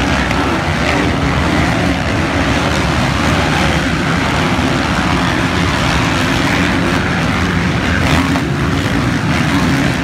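Motocross bikes racing as a pack, several engines running hard and revving together into one steady, loud mass of engine noise.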